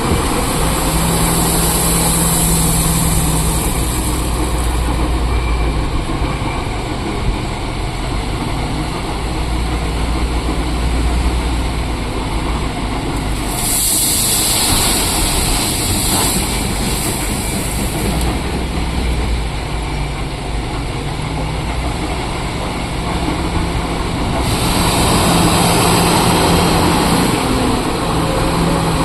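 Heavy diesel engines of a loader and a dump truck running steadily, with stretches of high hiss coming and going.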